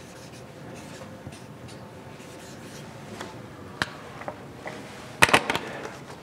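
Felt-tip marker writing on a flip-chart pad: faint scratchy strokes, followed by a single sharp click and then a quick cluster of louder clicks a little after five seconds in.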